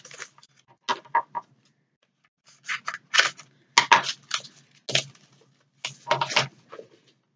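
Plastic packaging of a Shopkins blind basket crinkling and rustling in the hands as it is opened, in short bursts with brief pauses between.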